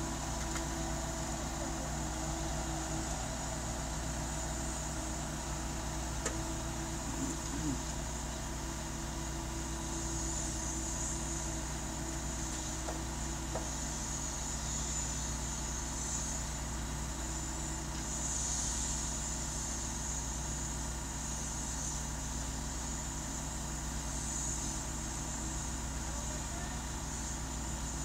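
Tuckerbilt T630 concrete transporter's engine running steadily, heard from the operator's cab, with a high hiss that swells and fades a few times.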